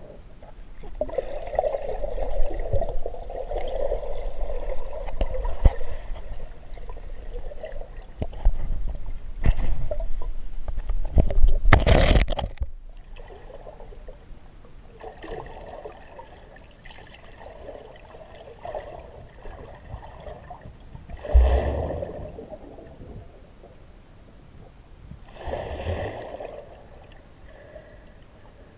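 Muffled water gurgling and sloshing, heard through a camera's waterproof housing underwater in a river. It comes in uneven swells, with one loud rushing surge about twelve seconds in, and is quieter in the second half apart from two short swells.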